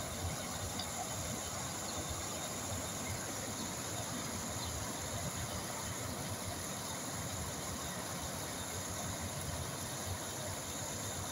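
Flowing water rushing steadily, as from a stream, with a low rumble underneath.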